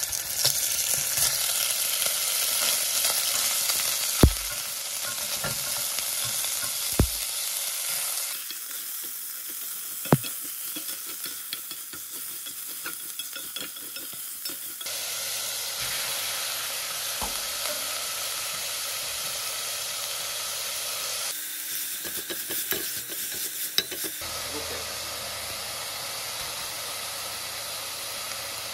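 Pieces of meat sizzling in hot oil in a stainless steel pot while a wooden spoon stirs them, with a few sharp knocks. The sizzle jumps abruptly between louder and softer stretches several times.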